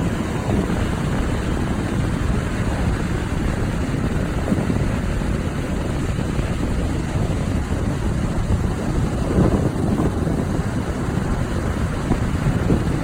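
Steady wind noise on the microphone over the wash of ocean surf.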